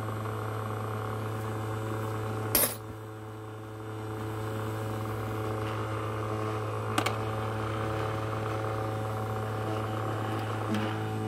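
Small ultrasonic cleaner running with a steady hum. There is a sharp click about two and a half seconds in, after which the hum dips briefly, and a lighter click about seven seconds in as a coin goes into the tank.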